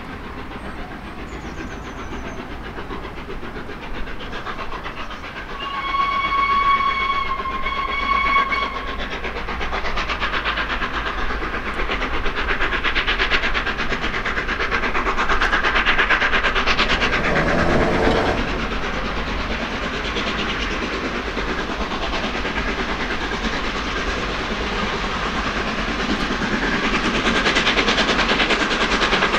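Three-cylinder steam locomotive 60163 Tornado, a Peppercorn A1 Pacific, working under steam as it approaches, its exhaust beats fast and even and growing louder near the end. Its whistle sounds once, a single steady tone held about three seconds, some six seconds in.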